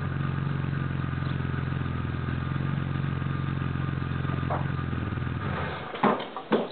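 BMW E34's M30 straight-six engine idling steadily through its exhaust, then shut off about five and a half seconds in. Two sharp knocks follow just after it stops.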